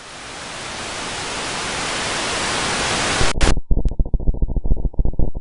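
Static hiss fading in and growing steadily louder, then cut off suddenly a little over three seconds in and replaced by a muffled, irregular crackle.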